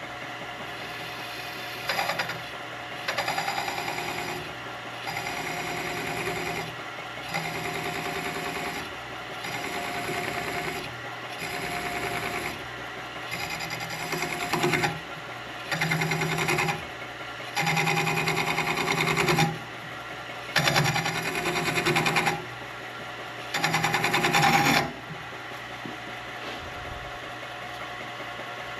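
Milling machine spindle running with a 3 mm end mill, the bit repeatedly plunging into and cutting carbon fiber: about eleven louder, harsher spells of one to two seconds each over the steady spindle hum, which runs on alone for the last few seconds.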